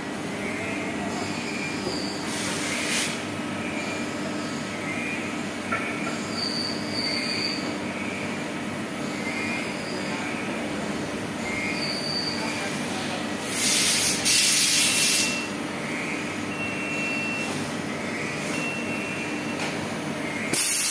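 Steady machine hum with a faint high squeal repeating about once a second. Loud hissing bursts come about two seconds in, for several seconds in the middle, and again at the very end.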